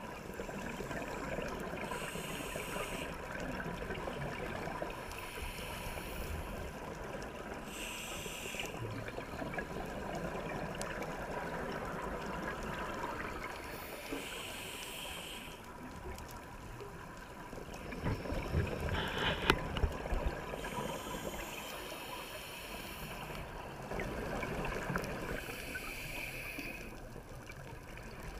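Scuba regulator breathing heard through an underwater camera: a hiss on each inhale every few seconds, with exhaust bubbles gurgling between breaths. About two-thirds of the way through there is a louder crackling burst of bubbles.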